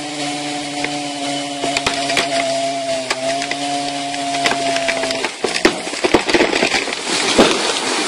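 A chainsaw runs at a steady pitch, cutting into the trunk of an uprooted tree, and cuts off about five seconds in. Loud cracking and splintering of wood follow as the cut trunk gives way and the root plate starts to move.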